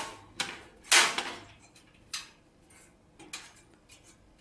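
Sheet-metal I/O shield being pressed into the rear opening of a steel computer case: a string of sharp metal clicks and clacks, the loudest about a second in, then a few fainter ones spaced out.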